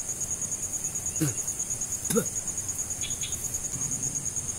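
A cricket trilling steadily, a fast, even pulsing at high pitch, with two brief human vocal sounds about one and two seconds in.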